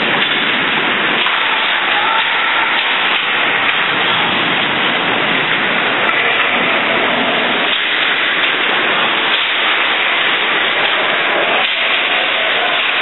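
A steady, loud rushing noise with no distinct events in it.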